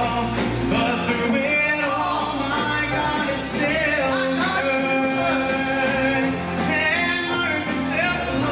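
Live worship band playing a country-gospel song: strummed acoustic guitar and electric bass with singing.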